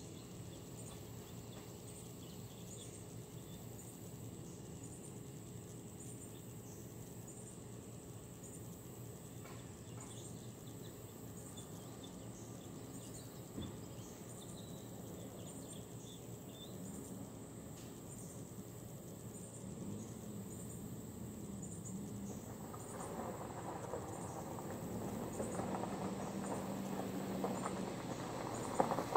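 Insects chirring steadily in the background. About three-quarters of the way in, a 2017 Subaru Impreza's flat-four engine and its tyres crunching on gravel come in and grow louder as the car drives up the driveway.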